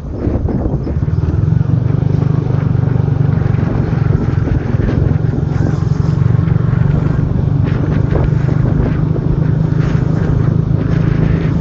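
Motorbike running steadily as it cruises along a street, heard from the pillion seat behind the rider.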